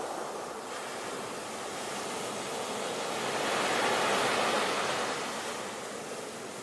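Sea waves breaking and washing onto shore, a steady surf noise that swells to a peak about four seconds in and then eases off.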